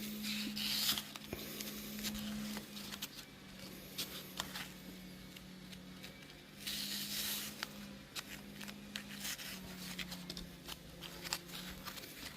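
Faint handling of a melamine foam sponge: scattered small clicks and scrapes, with two longer rasping noises, one about half a second in and one about seven seconds in, over a steady low hum.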